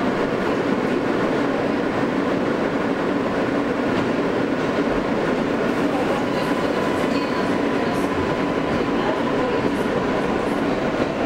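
Steady running noise of a Kawasaki R143 subway car heard from inside the car: wheels on rails with some clickety-clack and a constant rumble. A faint steady tone joins about halfway through.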